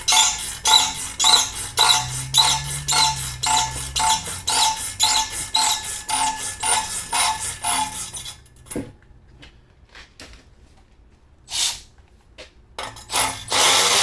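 A heat-loosened, rusted exhaust spring bolt being turned out by hand with a wrench, a quick run of rhythmic metallic squeaking strokes about two and a half a second. It stops about eight seconds in, followed by a couple of short clanks.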